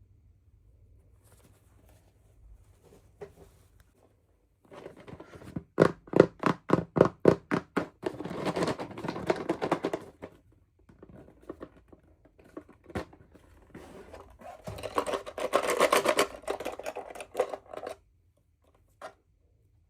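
Packaging being handled and unwrapped by hand: a quick run of scratching strokes, about five a second, then crinkling and rustling, with a second stretch of rustling later on.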